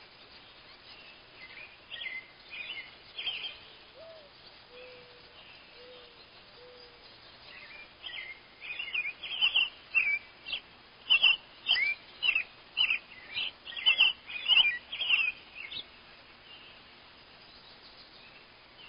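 Birds calling: a few soft, low whistled notes about four seconds in, then a quick run of loud, sharp, falling chirps from about eight to fifteen seconds.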